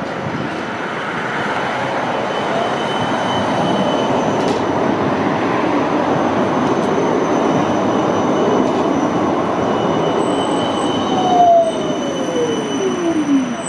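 Siemens Combino low-floor tram running in along the rails and braking to a stop: a steady rumble of wheels on rail with thin high wheel squeal, and near the end an electric whine that falls steadily in pitch as the tram slows to a halt.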